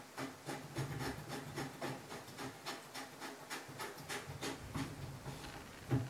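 Hands working a fitting at a chrome wall-mounted washing-machine tap: a run of short rasping rubs, about three a second, with a sharper click near the end.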